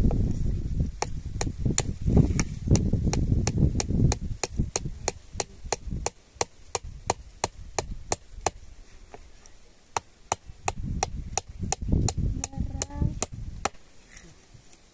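Steady chopping strokes, about three a second, like a knife cutting on a wooden board, stopping near the end. A low rumble sits under the first few seconds.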